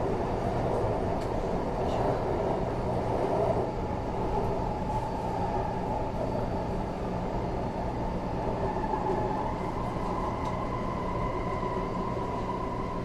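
Steel-wheel Taipei Metro C381 train running on elevated track, heard from inside the passenger car: steady running noise with a low hum. A thin whine comes in about five seconds in and holds.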